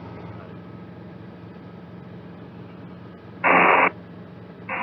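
Cabri G2 helicopter's engine and rotor drone heard through the headset intercom, with a loud half-second hiss of radio static about three and a half seconds in and another static hiss starting near the end.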